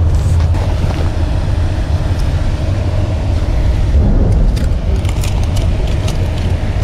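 Steady low rumble with a faint constant hum above it. From about four seconds in come light metallic clicks and jingles as a fish lying in a landing net is unhooked with a metal tool.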